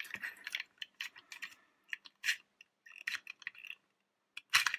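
Extendable plastic ladder of a Motor Max toy fire engine being pulled out by hand: a string of small plastic clicks and scrapes as the sections slide, with short pauses, and a louder cluster of clicks near the end.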